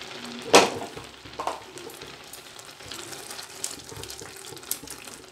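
Grated carrots simmering in milk in a frying pan, bubbling steadily while a spatula stirs and scrapes through them. A sharp clatter comes about half a second in and a smaller knock a second later.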